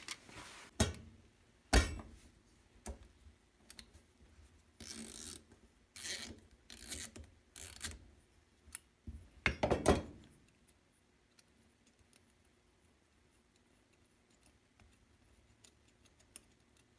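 Hands working on a snowmobile carburetor's small metal parts during teardown: a few sharp knocks and clicks with short scraping and rubbing noises, loudest just under two seconds in and again around ten seconds, then only faint ticks.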